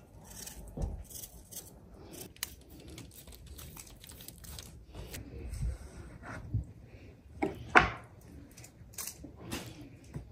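Scattered light clicks, taps and soft knocks of hands preparing food at a wooden table: pressing a salad on aluminium foil and picking kiwi slices off a wooden cutting board. The sharpest knock comes about eight seconds in.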